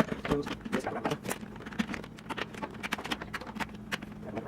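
Kitchen utensils, dishes and containers being handled and put away, giving irregular light clicks and knocks, several a second, over a steady low hum.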